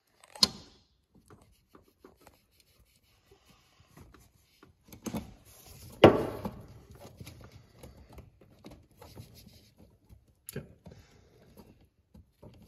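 Hand work on a rubber hose and spring hose clamp, with pliers, on an engine part: quiet rubbing and fiddling broken by a few sharp metallic clicks. The loudest click comes about six seconds in, another near the start and one about ten seconds in.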